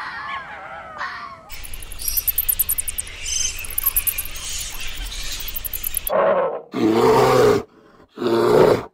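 A fox's gliding whining cries, then a fruit bat's rapid, high-pitched chittering and screeching. From about six seconds in, three loud, deep brown bear roars follow, with short silences between them.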